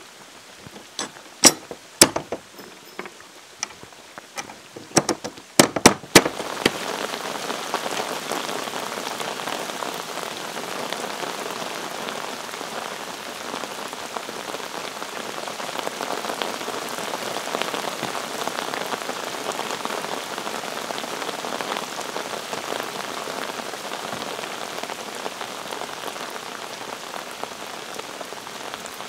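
A few sharp clicks and knocks as a steel strap is handled against a wooden plank door, then from about six seconds in a steady patter of rain falling on a pond and wooden decking.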